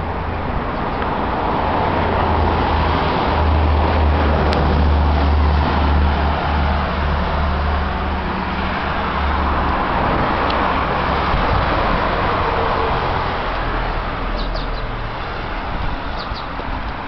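Road traffic on a city street: cars passing, their tyre and engine noise making a steady rumble that swells twice as vehicles go by.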